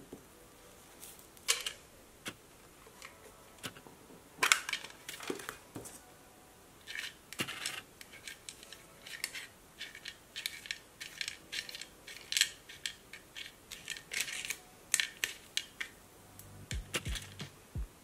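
Paper stickers being handled and picked out of a small metal tin with a pointed tool: a string of irregular light clicks, taps and paper crinkles, the loudest about four and a half seconds in.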